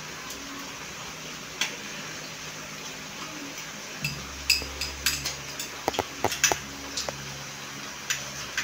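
Metal spoon clinking and scraping against a small glass cup as food is scooped out and eaten, with a single clink early and a run of quick clinks in the middle.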